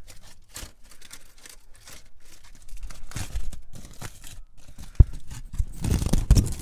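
Crumpled aluminium foil crinkling and rustling as a foil parcel is handled and pulled open. A few loud, dull thumps come near the end.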